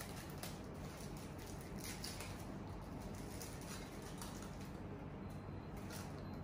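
Faint rustling and small scattered clicks of wrapping being pulled off a saxophone mouthpiece, over a steady low hum.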